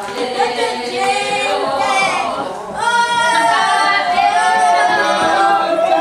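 A group of voices singing together unaccompanied in long held notes. There is a short break about two and a half seconds in, and the singing is louder after it.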